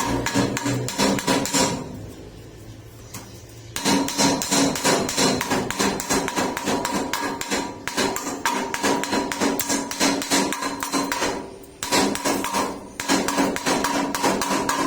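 A hammer striking thin steel square pipe in rapid taps, the tubing ringing with steady tones. It stops twice, briefly, then resumes.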